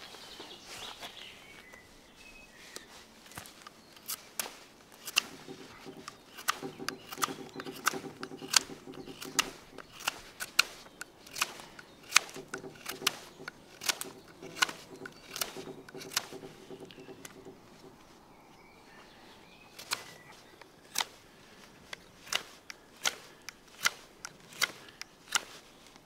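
Victorinox Huntsman pocketknife blade shaving green wood, flattening the round side of a split billet into a board: a long series of crisp cutting clicks, one for each stroke, about one or two a second with a short pause near the end. A faint low drone runs underneath through the middle.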